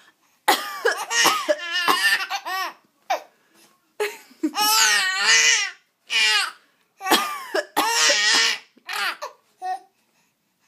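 An adult fake-coughing several times, each round of short coughs followed by a baby's high-pitched giggles and squeals of laughter.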